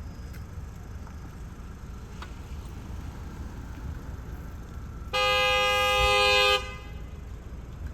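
Car horn sounding one steady blast of about a second and a half, over a low rumble of street noise.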